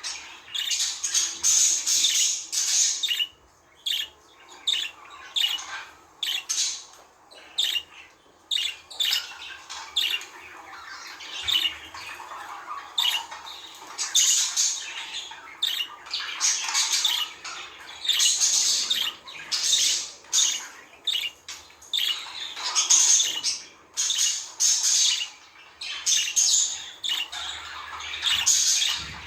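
Budgerigars chattering: a rapid, continuous run of short high chirps and squawks, broken only by brief pauses.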